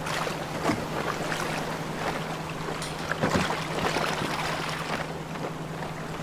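Boat at sea: water sloshing and splashing against the hull in irregular surges, over a steady low hum.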